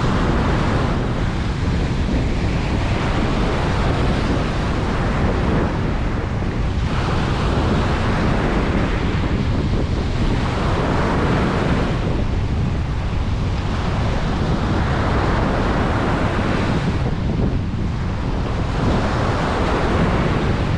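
Ocean surf breaking and washing up a beach, swelling again every three to four seconds over a steady low rumble of wind on the microphone.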